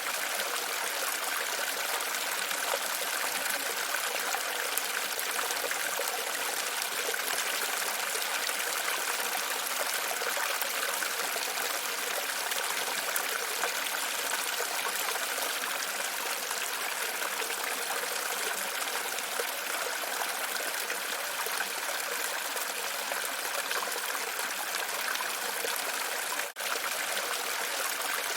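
Water running and trickling steadily, like a fountain or water channel, with a momentary dropout near the end.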